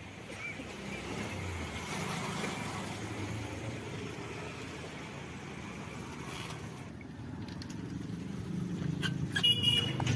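Street traffic: motor vehicles going by, a steady rush that swells and fades and builds again near the end, with a brief high-pitched tone just before the end.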